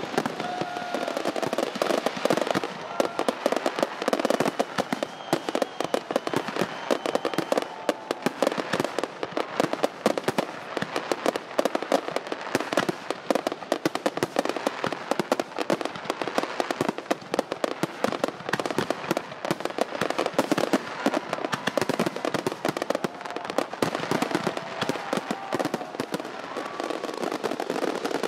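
Fireworks going off without a break: a dense, rapid crackle of many small sharp bangs and pops.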